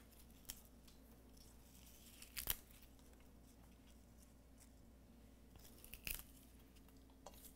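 Near silence, with a few faint, brief rustles and snaps, the loudest about two and a half and six seconds in: sprigs of Vietnamese coriander (rau răm) being picked apart by hand and laid on a metal platter.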